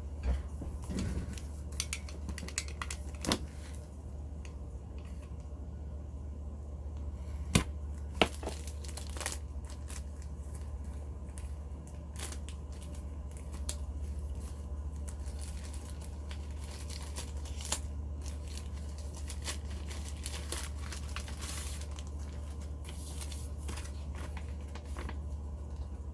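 Plastic packaging crinkling and tearing as toy parts are unwrapped, with scattered sharp clicks and knocks of hard plastic pieces. A steady low hum runs underneath.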